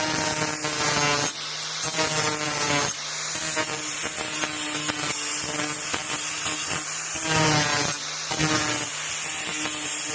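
Electric grinder running steadily and grinding the edge of a lawnmower blade in repeated passes. Each pass brings a harsh, hissing scrape over the motor's whine, several times over.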